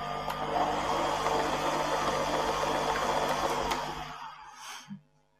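Electric stand mixer running steadily, its beater churning butter, icing sugar and milk into buttercream frosting in the metal bowl. The motor is switched off about four seconds in, and the sound dies away.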